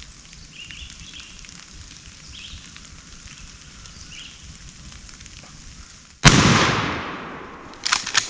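A single shotgun shot about six seconds in, its report echoing and fading through the woods for over a second, followed near the end by a quick cluster of sharp clicks. Faint birdsong before the shot.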